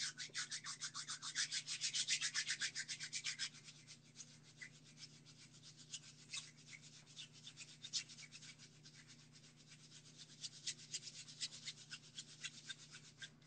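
Rapid scratching or rubbing strokes, about eight a second, loud for the first three and a half seconds, then fainter and more scattered until they stop just before the end, over a faint steady hum.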